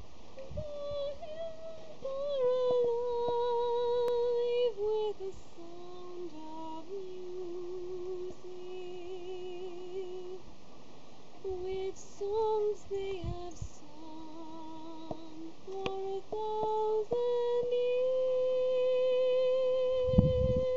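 A young woman singing solo, with long held notes and vibrato, ending on a long sustained note. A few low thumps come near the end.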